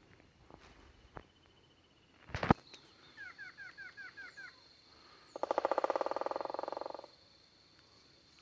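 Woodpecker drumming: one fast, even roll of strikes lasting about a second and a half, resonating. Before it comes a run of about seven short, repeated bird chirps, and a single sharp knock about a quarter of the way in.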